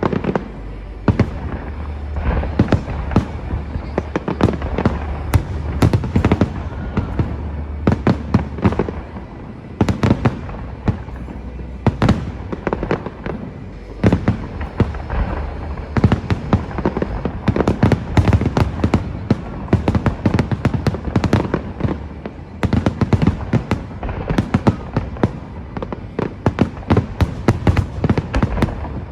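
Fireworks exploding in rapid, continuous succession: dense bangs and crackling bursts, several a second, over a low rumble, with the display's music faintly beneath.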